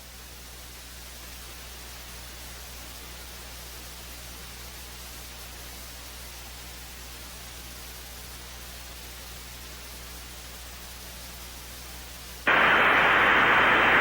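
Steady faint hiss of an open audio line with a low hum underneath. About twelve seconds in, a much louder band of radio static cuts in suddenly as a weather-radio broadcast feed opens, just before the warning voice begins.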